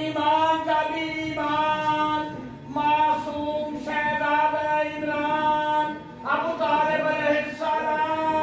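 Unaccompanied devotional singing of a manqabat by a boy's voice: long held, slightly wavering notes in several drawn-out phrases with brief breaks between them.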